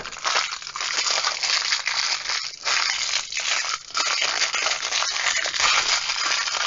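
Clear plastic bag crinkling and rustling continuously as hands handle and unwrap it.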